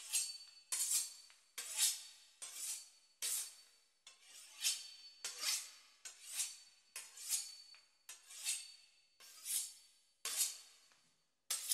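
Knife sawing back and forth through the crisp pastry crust of a beef Wellington: a dry rasping stroke a little more than once a second, each starting sharply and fading.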